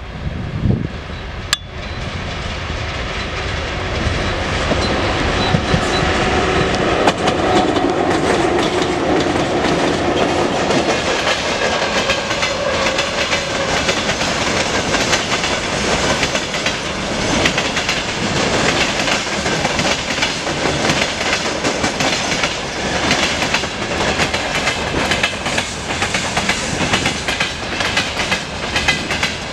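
A freight train hauled by a VL11 electric locomotive passing close by, getting louder over the first several seconds as the locomotive arrives. Then there is a steady clickety-clack of the freight wagons' wheels rolling over the rail joints.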